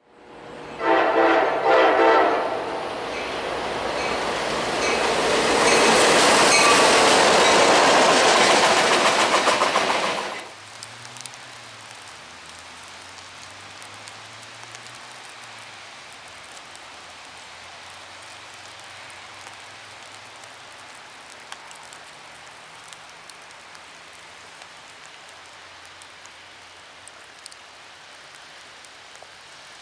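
Train horn sounding a chord for about two seconds, then a train passing close by at speed with a loud rush and rail clatter that cuts off suddenly about ten seconds in. After that comes quieter steady outdoor ambience with a faint low hum and a few small ticks.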